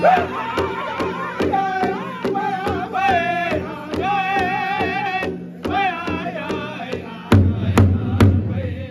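Powwow drum group singing in high voices over a large shared hand drum, beaten in a steady rhythm of about three strokes a second. Near the end the singing drops away and the drumbeats come heavier and louder.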